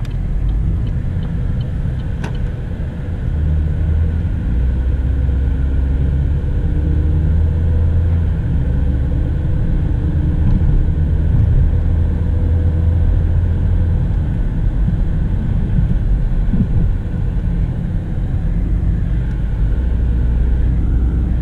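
Steady low rumble of road and engine noise heard inside the cabin of a 2016 Chevrolet Cruze driving along, with a faint wavering engine hum. The newly replaced front brake pads and rotors make no grinding, and the car is quiet.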